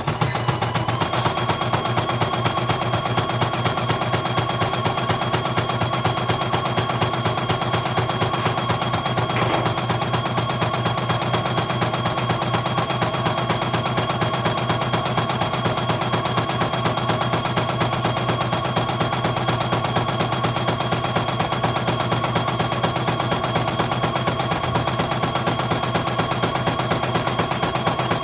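CNY E900 portable computerized embroidery machine stitching a design: fast, even needle clatter with a steady high whine over it.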